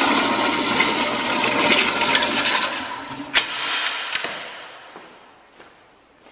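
Public toilet with a chrome wall-mounted flush valve flushing: a loud rush of water through the bowl that tapers off about three seconds in. Two sharp clicks come as it fades to a faint trickle.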